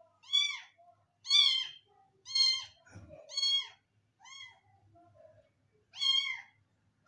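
Young ginger kitten meowing six times, short high calls that rise and fall in pitch, one after another. The kitten is newly adopted, and its owner puts the constant crying down to the new surroundings. A soft knock about three seconds in.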